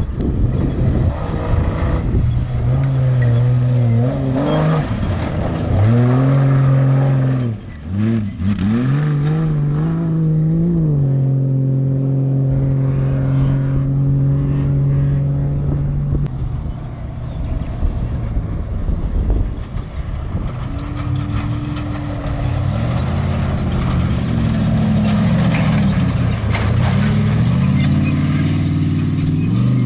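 Off-road race vehicle's engine running hard, its pitch rising and falling with the throttle. It dips sharply for a moment about eight seconds in, then holds steady for several seconds before rising and falling again.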